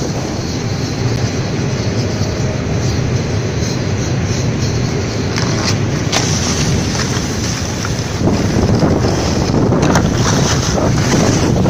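Steady rushing noise of riding down a snow slope: wind buffeting the microphone of a moving camera, with the hiss and scrape of snowboard edges on the snow. It grows a little louder past the middle.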